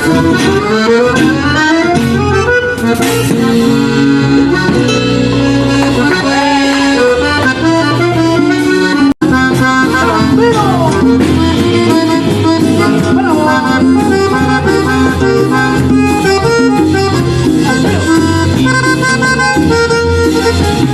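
Live folk band playing an instrumental passage during a sound check. The sound cuts out for an instant about nine seconds in.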